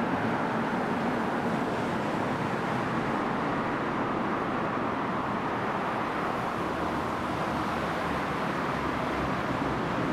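Steady road-traffic noise echoing through a concrete underpass.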